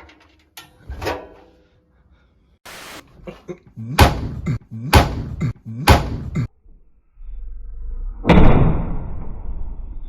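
Washing machine door slammed shut hard three times, about a second apart, with lighter knocks before. Near the end a loud rushing noise starts suddenly and fades away.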